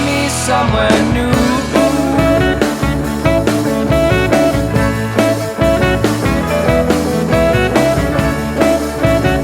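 Rock music played by a band: guitar over a steady beat.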